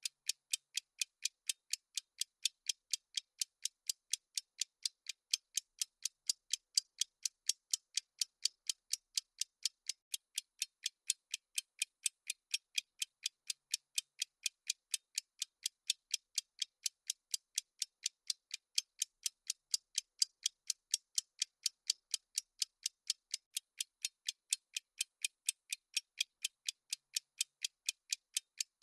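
Clock-style ticking sound effect of a countdown timer: a steady, even run of sharp, thin ticks with no low end.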